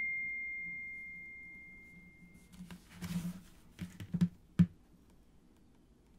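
The single high tone of a smartphone notification chime dies away over the first two seconds or so. Then a hand picks the phone up off the desk, with light rustling and a few taps, the sharpest about four and a half seconds in.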